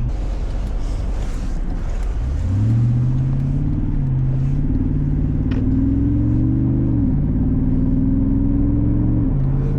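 Jeep SRT8's Hemi V8 accelerating, its exhaust note climbing about two seconds in. The note drops back sharply at upshifts around seven and nine seconds in, over steady road rumble. The engine is freshly rebuilt and being broken in.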